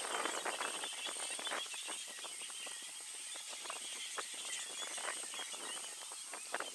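Elephants moving in dry scrub: scattered crackling and rustling of dry brush and twigs, over a steady high insect whine.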